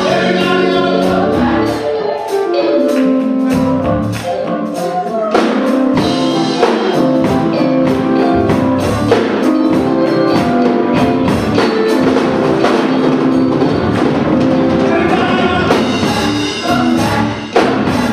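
Live gospel music: a choir singing with the church band, drums and cymbals striking steadily from about five seconds in.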